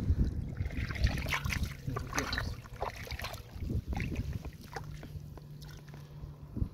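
Hands splashing and sloshing in shallow muddy water, with irregular wet slaps, squelches and trickles as small fish are picked out of the mud.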